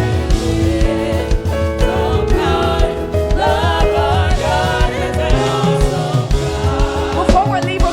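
Live gospel praise music: a choir of singers over a full band, with a steady drum beat.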